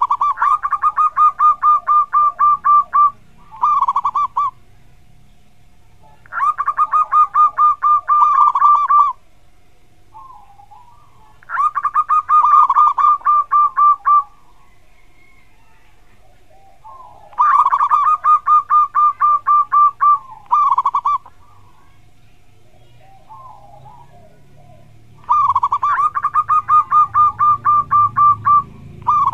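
Zebra dove (perkutut) singing its song: five phrases, each a quick run of about ten coo notes followed by a short separate closing 'kuk' note, repeating every five to six seconds. A faint steady hum lies underneath.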